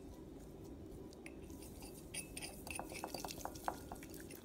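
Slime mixture of clear glue, glitter and activator being stirred in a bowl with a utensil: wet stirring with scattered light clinks against the bowl, which come thicker in the second half, the sharpest about three and a half seconds in.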